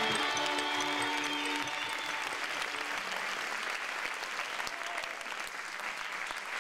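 Theatre audience applauding, the clapping slowly fading, while the last held chord of the music dies away in the first couple of seconds.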